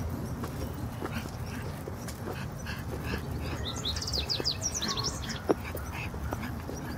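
A pug moving along in a dog wheelchair, with scattered light clicks and knocks and one sharp click about five and a half seconds in. Birds chirp high over a steady low rumble, most densely around the middle.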